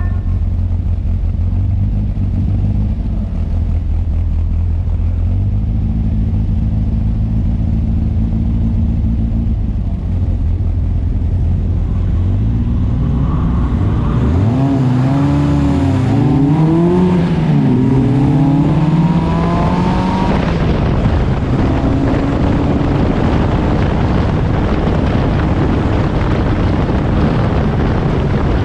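Onboard sound of a Seven-style club race car's engine, with the surrounding field's engines, idling on the grid and held at a raised steady note for a few seconds. At about twelve seconds in, the engines rev hard as the cars pull away, the pitch climbing and dropping several times through gear changes, then running loud and steady at speed.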